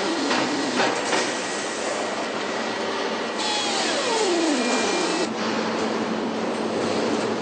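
Truck assembly-line machinery and power tools running: a dense mechanical whirr with scattered clicks, and a whine that winds down in pitch near the middle.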